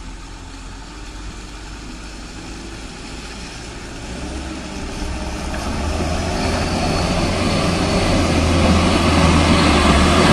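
Mitsubishi Fuso Colt Diesel truck's diesel engine running under load as the truck drives up a rough dirt track, a low steady drone that grows steadily louder as it approaches, loudest near the end.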